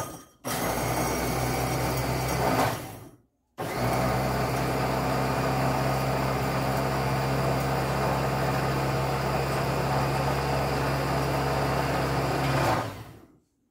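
A Rommelsbacher electric food chopper's motor runs steadily as it grinds biscuits into powder. There is a short run of about two seconds, a brief stop, then a long run of about nine seconds that cuts off near the end.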